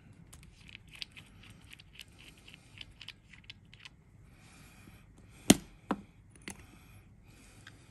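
Small clicks and taps of a brass Hellvape Fat Rabbit RTA deck and its metal parts being handled and fitted to a vape mod, with one sharp, louder click about five and a half seconds in and two lighter ones soon after.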